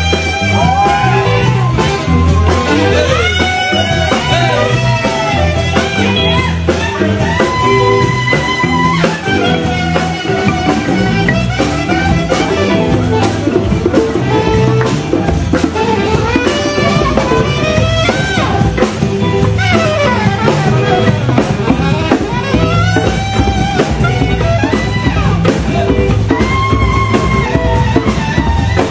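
A band playing Bubu music, with a lead instrument taking a solo of bending, gliding melodic lines over a steady drum-kit groove.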